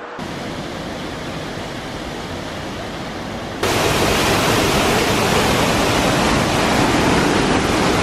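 Afon Mynach river rushing through the narrow rock gorge of the Punch Bowl, a steady noise of churning water. It is softer at first and becomes suddenly louder about three and a half seconds in.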